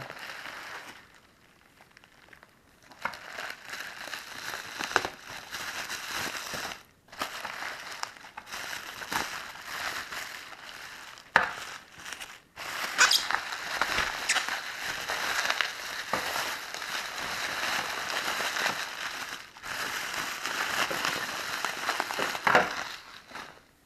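Packaging being unwrapped by hand: long spells of crinkling and rustling with scattered sharp crackles, broken by a few brief pauses.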